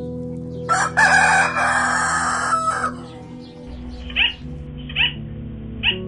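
A rooster crows once, one loud, hoarse cock-a-doodle-doo of about two seconds, over steady background music. In the second half, short rising calls repeat about once a second.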